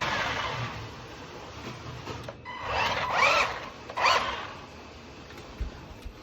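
Small electric motor of a 1:24 RC rally car whirring, then revving up and down in two short bursts about halfway through.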